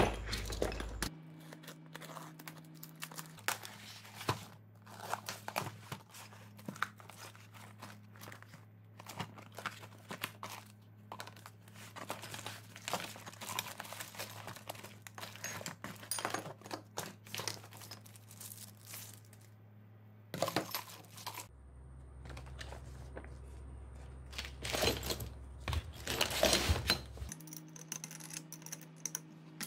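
Plastic packaging bags crinkling and rustling as parts of a chainsaw-stand kit are handled out of a cardboard box, with irregular clicks and knocks of plastic parts. The handling is loudest for a few seconds near the end.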